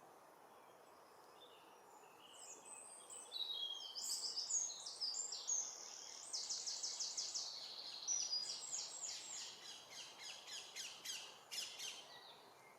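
Small songbirds singing: high-pitched phrases of rapid trills and chirps, beginning a couple of seconds in and running in several bursts until shortly before the end.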